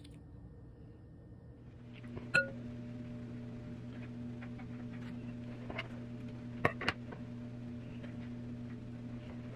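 Steady low hum setting in about two seconds in, with one sharp click soon after and a few lighter clicks and taps later on.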